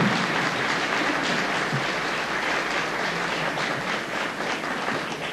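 Studio audience applauding, a dense and even clapping that slowly fades toward the end.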